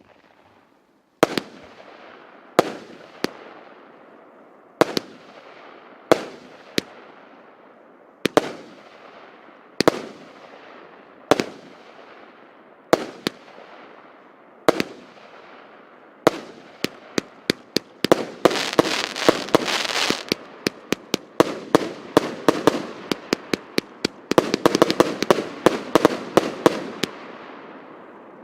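100-shot, 25 mm (1-inch) consumer firework cake firing. Single bangs go off about every second and a half, each ringing out afterwards. Over the second half they speed up into a rapid string of bangs with loud crackling from crackling stars.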